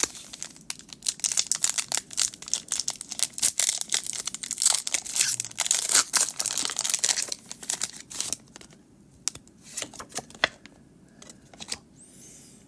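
Foil wrapper of a Pokémon TCG booster pack being torn open and crinkled: a dense run of crackling for about eight seconds, then fewer, quieter crackles and taps.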